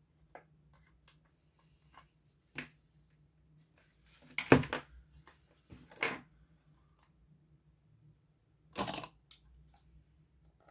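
Handling noise from an Oculus Quest 2 headset being worked on: scattered small plastic clicks and knocks as it is set down on a silicone work mat. The loudest clatter comes about four and a half seconds in, with further bursts about six and nine seconds in.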